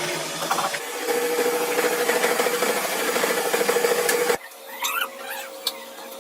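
Harsh rasping and scraping of a tool working a metal part, with a fluttering steady tone under it. It cuts off suddenly about four seconds in, leaving quieter shop sound.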